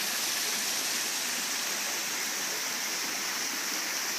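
Water spilling steadily over a rock waterfall into a swimming pool: an even, continuous splashing rush.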